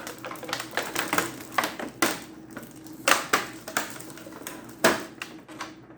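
Irregular clicks, crackles and light knocks of plastic figure parts and their plastic packaging being handled and pulled apart. The sharpest knocks come about three seconds in and just before five seconds.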